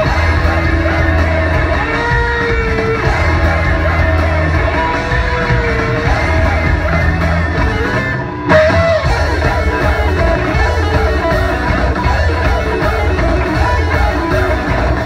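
Live rock band playing: electric guitar, bass, drums and keyboards through a hall PA, with gliding melodic lines on top. About eight seconds in the band drops out for an instant and comes back in together with a loud hit.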